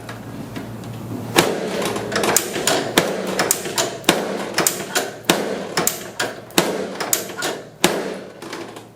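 A quick, irregular series of sharp knocks during a chiropractic treatment on a patient lying face down, about three a second starting a little over a second in.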